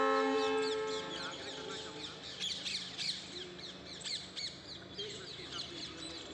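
Birds chirping and squawking in a busy chorus of many short, falling calls, several a second. A loud held tone with several steady pitches fades out in the first second.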